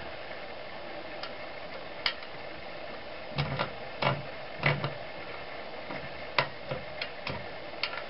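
Scattered small metal clicks and taps, about ten at irregular intervals, from the adjustment knob and retaining nut of a cast-iron Arcade No. 3 coffee grinder being turned by hand to set a coarser grind.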